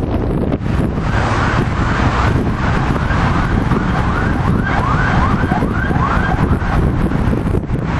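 Emergency-vehicle siren yelping in quick rising sweeps, about two a second, loudest a little past halfway, over a steady low rumble of traffic and wind on the microphone.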